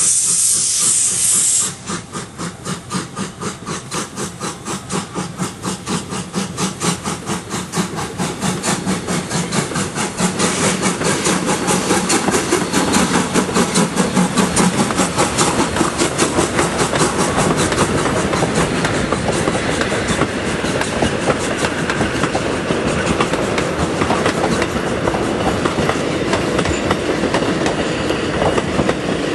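Steam locomotive VGJ 24 starting a passenger train. A loud hiss of steam from the open cylinder cocks cuts off suddenly about two seconds in. Exhaust chuffs then follow in a quickening rhythm as the engine gathers speed, and the carriages roll past with a clickety-clack over the rail joints.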